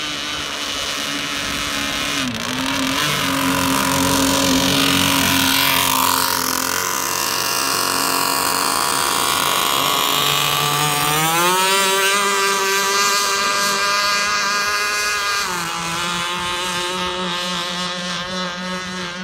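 Large RC speedboat's two-stroke gas engine running at high revs as the boat planes across the water. It gets louder as the boat passes close in the middle, its pitch climbs sharply about eleven seconds in, then drops back a few seconds later as the boat heads away.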